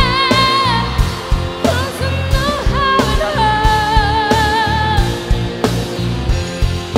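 A woman singing a pop ballad with a band behind her: a long held note with vibrato that ends about a second in, a short phrase, then another long note with vibrato, over a steady drum beat.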